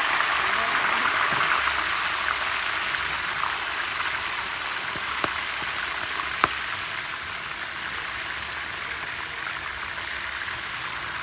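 Water at a rolling boil in a stainless steel pot with lobsters in it, bubbling and crackling steadily and getting gradually a little quieter. Two sharp clicks come about halfway through.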